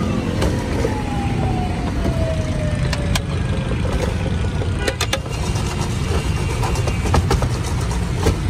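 Steady street traffic rumble, with a tone that slides down in pitch over the first few seconds. Sharp clicks and rattles from fries being tossed in a steel bowl come about halfway through and again near the end.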